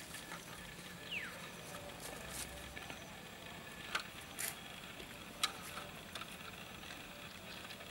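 An aluminium drink can being handled on a bamboo pole: a few sharp clicks and taps, the loudest about four and five and a half seconds in, over a faint steady hiss. A short falling squeak comes about a second in.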